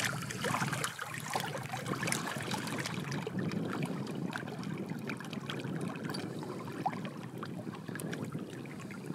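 Steady trickling and lapping of shallow lake water, with faint scattered ticks.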